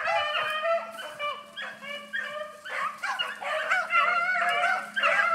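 Pack of beagles baying in several overlapping voices, almost without a break: hounds running a cottontail rabbit on its scent.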